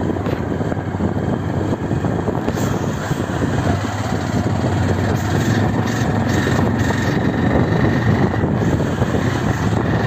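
A vehicle's engine running steadily as it is driven along a dirt track, heard as a continuous low hum under a loud, even rush of noise.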